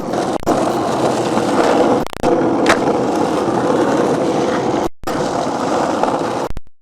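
Skateboard wheels rolling over concrete in a steady rumble, with a sharp knock about two seconds in. The sound drops out abruptly for a moment about five seconds in, then the rolling resumes.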